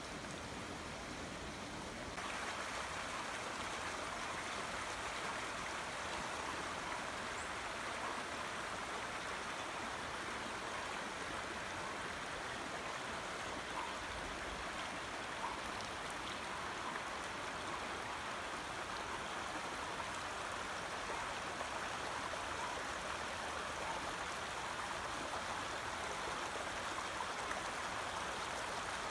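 Storm runoff rushing as a shallow sheet of water over a street's asphalt and along the curb, a steady flowing noise like a stream. It gets a little louder about two seconds in.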